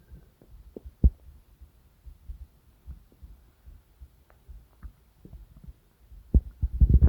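Stomach and bowel noises: irregular low gurgles, pops and thumps of digestion, with a strong pop about a second in and a louder run of gurgling near the end.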